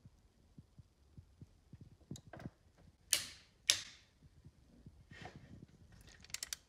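Click-type Snap-on torque wrench pulled slowly on a cylinder head bolt: two loud sharp clicks with a short ringing tail, about half a second apart, partway through, the wrench breaking over at its 120 ft-lb setting. A quick run of lighter clicks follows near the end.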